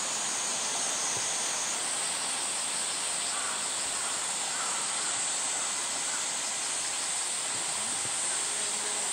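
Steady high-pitched hiss of a summer cicada chorus, with a few faint short calls midway.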